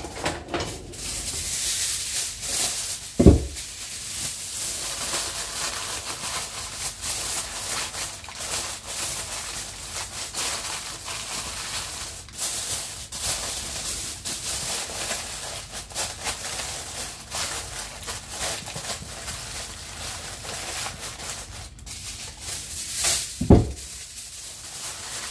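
Aluminium foil crinkling and rustling as hands scrunch and press it down over a baking dish, with two dull thumps, one a few seconds in and one near the end.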